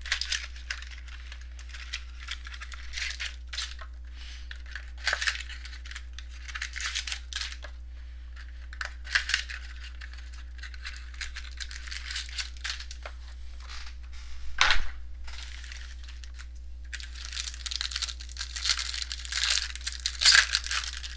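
Crinkling and tearing of the plastic wrap and cardboard packaging as a sealed box of baseball trading cards and its packs are opened by hand, in irregular bursts that grow dense near the end. A single sharp snap about fifteen seconds in is the loudest sound.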